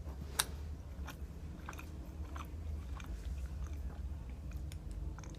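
A person chewing food close to the microphone: wet mouth clicks and smacks at an irregular pace, with a sharper click about half a second in, over a steady low background hum.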